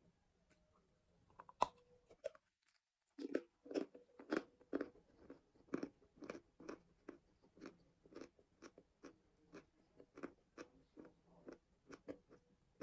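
Edible chalk being bitten into with a sharp snap about one and a half seconds in, then chewed with steady crunching, about two chews a second, slowly getting softer.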